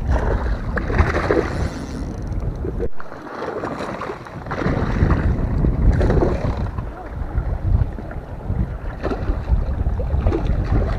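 Wind buffeting the microphone over sea water washing against shoreline rocks, a gusty, low rumbling noise that briefly cuts out about three seconds in.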